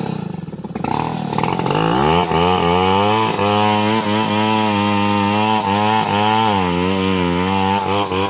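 Two-stroke chainsaw revving up to full throttle about two seconds in and cutting into a mahogany trunk near its base. The engine note dips and recovers several times as the chain bites into the wood.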